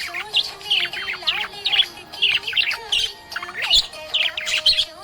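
Budgerigar chirping and warbling in quick clusters of high chirps, several a second, one after another.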